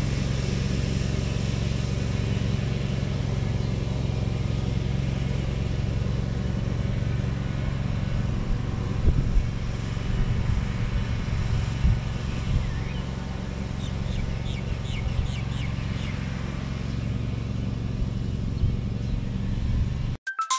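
Dixon zero-turn mower's engine running steadily at a distance, a constant low drone. A few soft thumps come partway through, and music cuts in right at the end.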